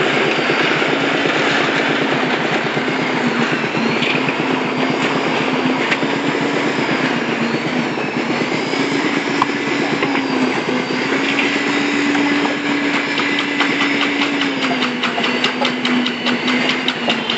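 A machine's engine running steadily under load, its pitch wavering slightly, with a fast metallic rattle coming in during the last few seconds.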